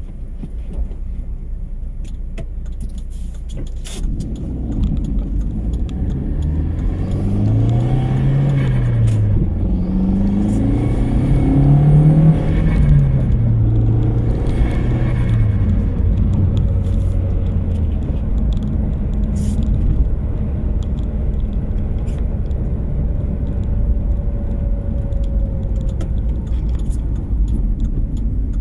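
Audi TT 225's 1.8-litre turbocharged APX four-cylinder engine idling and revved several times in the middle, the pitch rising and falling with each blip, with turbo flutter as the throttle closes. A knocking that sounds much like rod knock runs under it; it came from a loose timing belt tensioner.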